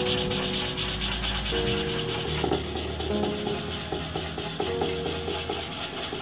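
A fast, steady scratchy rubbing noise over background music with held notes.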